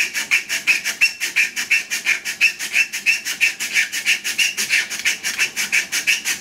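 A strip of abrasive cloth drawn quickly back and forth through the saw cuts of a turned camphor laurel tulip, sanding the cut faces: an even rhythm of scratchy strokes, about six a second.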